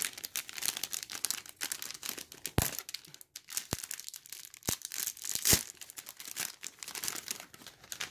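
Thin clear plastic bag crinkling and crackling in the hands as socks are handled and taken out of it, with a few sharp clicks around the middle.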